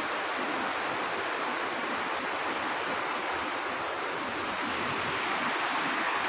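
River water rushing steadily, an even hiss that neither rises nor falls.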